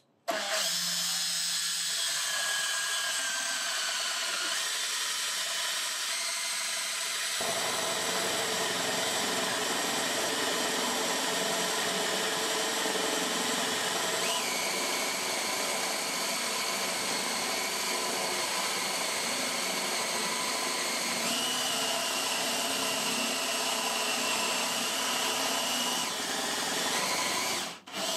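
Power drill running a bore bit into wood, cutting a concealed-hinge cup hole to depth. It is a continuous motor whine with the cutting noise under it; the pitch steps a few times along the way, and the drill stops shortly before the end.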